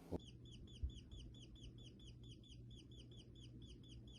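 Faint bird chirping: short high falling notes repeated quickly and evenly, about seven a second, with a soft click at the start and a low thump about a second in.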